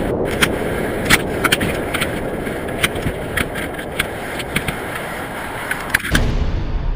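Steady wind noise on a high-altitude payload camera's microphone, with many irregular clicks and rattles. About six seconds in, the sound breaks into a low hum as the camera fails in the extreme cold.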